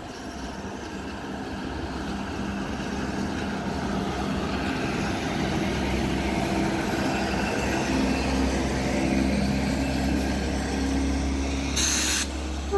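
WAG-7 electric locomotive and its train of ICF parcel vans running past at speed: a steady low hum with wheel and rail noise, growing louder over the first several seconds as the train comes alongside, then holding as the vans roll by. A short hiss near the end.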